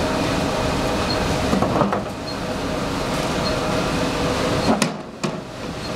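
Briquette-making machinery running with a steady mechanical hum and rumble, faint regular ticks about once a second, and two sharp clicks about five seconds in as the sound briefly dips.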